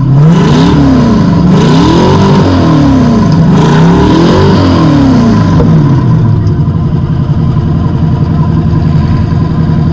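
Demolition derby car's engine, heard from inside the stripped cab, revved up and down about four times and then settling to a steady idle about six seconds in. A thin steady whine runs underneath.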